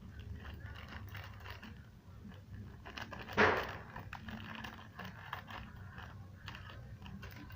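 Light crinkling, scraping and clicking handling noises in the kitchen, with one louder rustle about three and a half seconds in.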